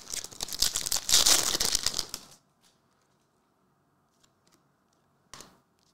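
Foil trading-card pack wrapper being torn open and crinkled for about two seconds. One short rustle near the end.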